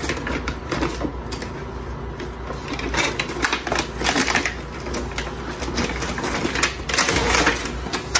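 Rustling and crinkling of plastic packaging, with quick irregular clicks and taps of hard plastic parts, as an electric dish-scrubber brush set is handled.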